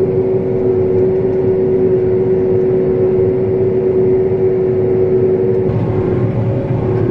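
Vehicle engine idling: a steady hum with a whine that eases slightly about six seconds in.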